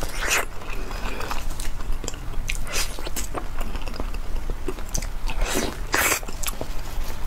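Close-up mouth sounds of a person biting and chewing soft durian flesh: irregular clicks and smacks, with a few louder bites along the way.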